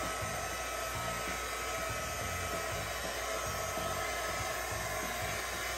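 Heat gun running, blowing hot air over wet acrylic paint: a steady rush of air with a faint even whine.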